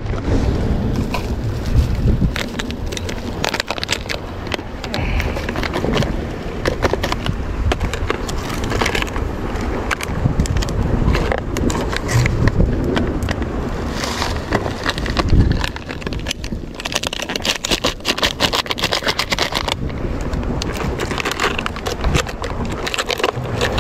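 Foil-and-plastic instant coffee sachets crinkling and rustling as they are torn open and emptied into plastic cups, many small crackles throughout, over a steady low rumble of wind on the microphone.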